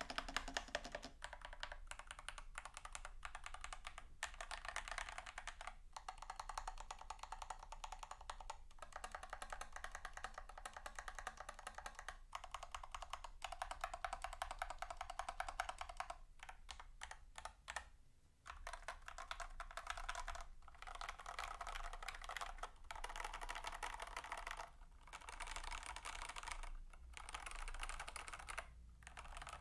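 Fast, continuous typing on a mechanical keyboard with stock, unlubed TTC Gold Pink linear switches and Cherry stabilizers: dense runs of key clacks broken by brief pauses, with a longer lull a little past the middle.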